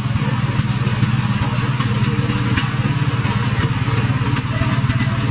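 An engine running steadily at a constant speed with a fast, even low throb. It cuts in suddenly at the start.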